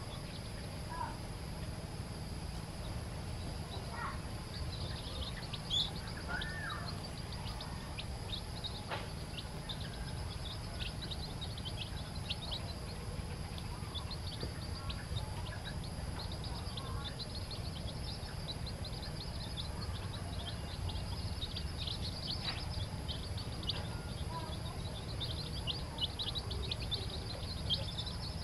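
Newly hatched chicks peeping: many short, high, downward-slurred cheeps that grow busier from a few seconds in, over a steady low background noise.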